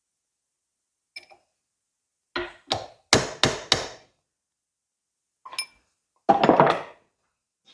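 Hammer strikes on the metal parts of a hydraulic stabilizer cylinder, driving the gland into the barrel far enough to fit the retaining ring: a light ringing tap, then a quick run of about five blows, another ringing tap and a final cluster of blows near the end.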